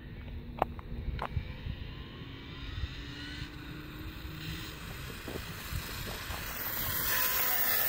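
Arrma Senton electric RC short-course truck speeding down the road toward the listener on a high-speed run, its motor and tyre noise growing louder as it closes in and loudest near the end.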